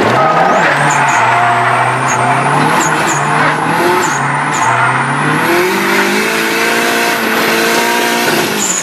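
Onboard sound of a 2JZ-engined Nissan S15 drifting: the engine revs rise and fall with the throttle while the tyres squeal and skid, with short high chirps every half second or so. The revs climb in steps in the last few seconds.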